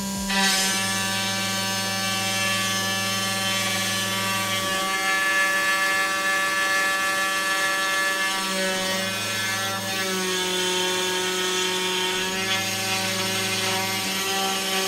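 Creality CR-10 converted into a PCB mill, running: a small spindle motor turns the bit cutting into the copper-clad board, while the stepper motors whine in steady tones that jump to new pitches every few seconds as the head changes moves.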